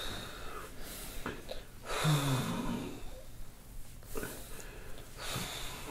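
A man breathing hard in and out, through his nose, as deep hand pressure is worked into his sore back. About two seconds in there is a short low groan.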